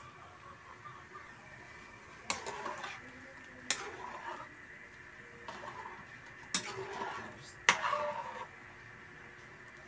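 Metal cooking utensil clinking against a cooking pot four times, each clink followed by a short stretch of scraping and rattling as the pot is stirred.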